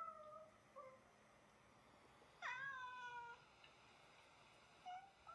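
A cat meowing: a few short meows and one longer, drawn-out meow of about a second near the middle.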